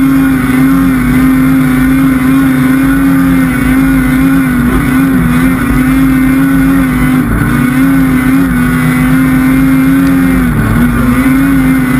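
Polaris snowmobile engine running hard at high, steady revs while climbing in snow, its pitch dipping briefly three times as the throttle eases and comes back.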